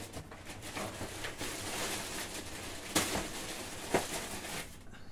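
A plastic shopping bag rustling and crinkling as a hand rummages in it for a tool, with two sharp knocks about three and four seconds in.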